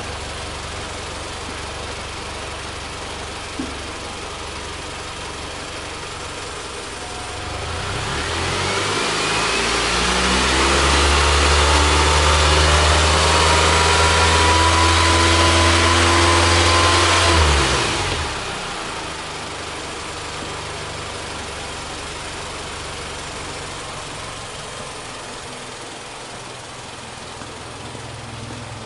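Mitsubishi Delica D:5 engine idling, then revved up over a few seconds and held at high revs for about six seconds before being released, falling quickly back to a steady idle.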